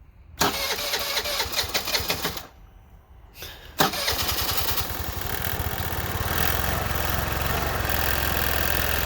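2022 Piaggio Liberty 50cc scooter's engine being started: a first try of about two seconds that doesn't keep it going, then a second try about four seconds in where it catches and runs steadily at idle on its freshly installed battery.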